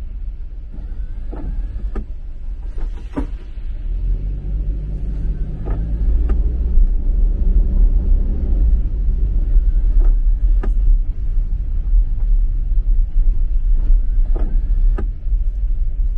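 Car engine and tyre rumble on a wet road, heard from inside the cabin, growing louder a few seconds in as the car picks up speed. A windscreen wiper sweeps about every four seconds, with a click at each end of the stroke.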